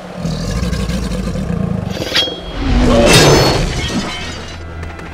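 Action sound effects over a music score: a sharp ringing hit about two seconds in, then a loud swelling crash a second later, over a low rumble.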